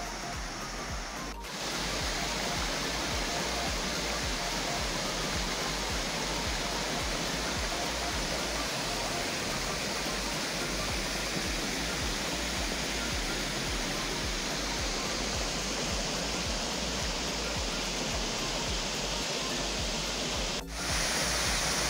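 Steady rush of water from a shallow creek running over rock, with small cascades. It breaks off abruptly about a second and a half in and again near the end, each time coming back slightly louder.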